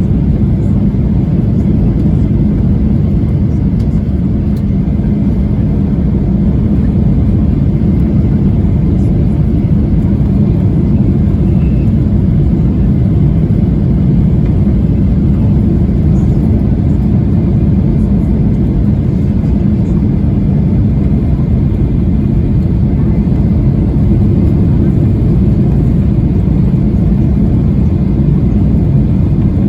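Boeing 737-800 cabin noise on final approach: steady low rumble of the CFM56 engines and airflow heard from inside the cabin.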